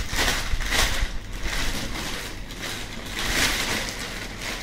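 Clear plastic packaging bag crinkling and rustling as a robot vacuum is pulled out of it, in several irregular rustles.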